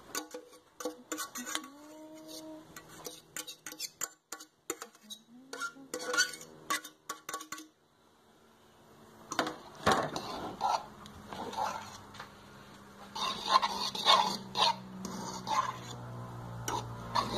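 Spoon and cutlery clinking and scraping against a pot and plates as food is served out. The clatter stops briefly about halfway through, then resumes.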